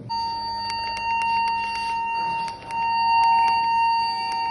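Electronic pipe locator receiver giving a steady, high-pitched electronic tone with rapid clicking over it while tracing a buried pipe. The tone cuts in suddenly and dips briefly in volume about halfway through.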